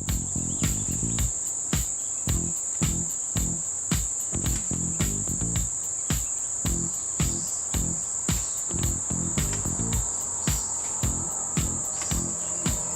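Steady, high-pitched insect buzz, with a regular beat of about two thumps a second underneath.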